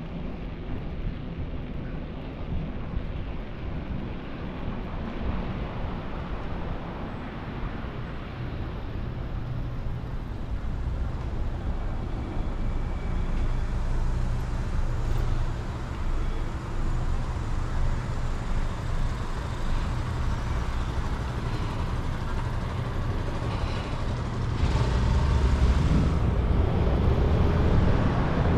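City traffic and road noise heard from a moving bicycle: a steady low rumble of passing cars and tyres that grows louder near the end.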